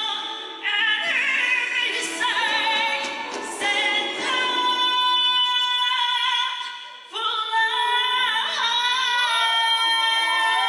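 A woman singing a slow song into a handheld microphone, holding long notes with a wide vibrato, with a short break for breath about seven seconds in.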